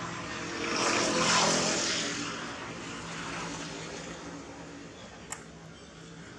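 A motor vehicle passing: its noise swells about a second in and fades over the next second or two, over a steady low hum. A single sharp click near the end.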